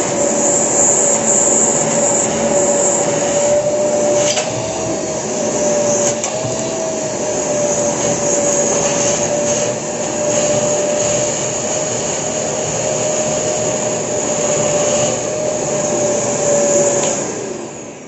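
Kärcher WD3 wet-and-dry vacuum running, sucking water out of a bucket through its hose: a steady motor whine with a slight waver in pitch. It is switched off near the end and begins to wind down.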